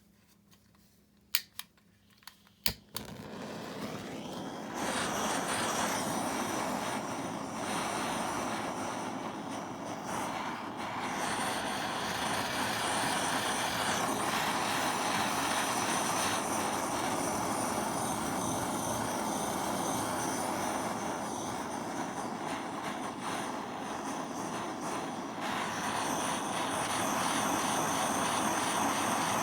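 Soldering torch lit for silver soldering: a few sharp clicks in the first three seconds, then a steady rushing flame noise that swells in and keeps burning.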